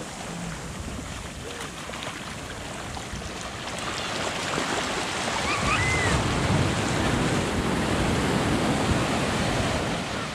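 Shallow surf washing up a sandy beach and over people lying at the water's edge. The rush of water swells louder about four seconds in and eases off near the end.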